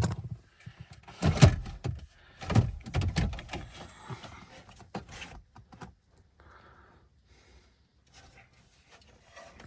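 Clunks and clicks of the radio unit and plastic dashboard trim being handled. The loudest knocks come about one and a half and three seconds in, followed by fainter scattered clicks.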